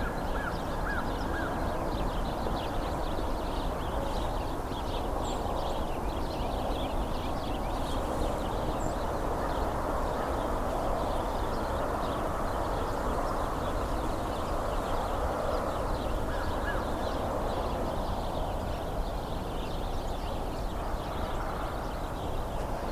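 A large flock of house sparrows chirping and chattering continuously, many overlapping short chirps, over a steady background hum.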